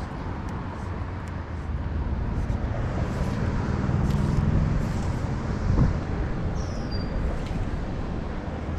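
Wind buffeting the camera microphone, a steady low rumble, with a low hum swelling about three to five seconds in.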